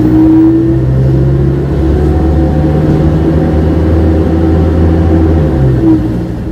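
Wright Cadet single-decker bus's diesel engine running steadily under way, heard from inside the bus; its pitch dips slightly near the end.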